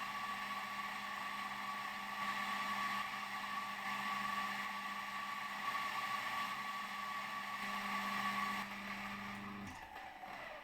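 Flat-blade coffee grinder running with a steady whine, grinding out the last coffee left in the collar after the hopper gate has been closed. It starts abruptly and is switched off about nine and a half seconds in, winding down briefly.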